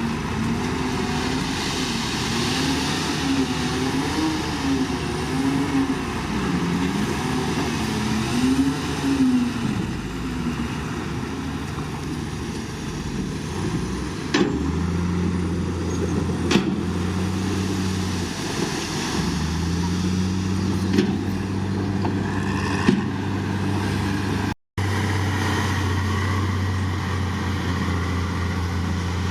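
Heavy diesel engine of earthmoving machinery working sand, its engine speed rising and falling for the first several seconds, then settling into a steadier, deeper drone, with a few sharp metallic knocks. The sound cuts out for a split second near the end.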